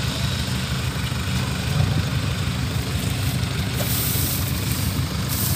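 Kubota DC-70 combine harvester's diesel engine running steadily with an even, low drone.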